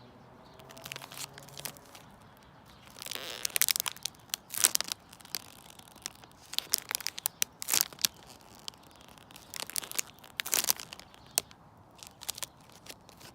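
Irregular crinkling and crunching of a homemade paper squishy being squeezed and handled, in sharp crackles of changing strength, loudest about three to five seconds in and again near ten seconds.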